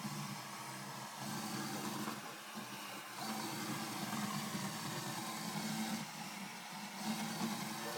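Roborock S8 Pro Ultra robot vacuum running: a steady motor hum with a hiss of suction over it, its level wavering slightly.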